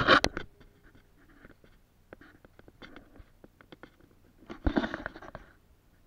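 Handling noise from a small action camera being taken off and set down: a loud rustle with knocks at the start, scattered small clicks, and another rustle about five seconds in.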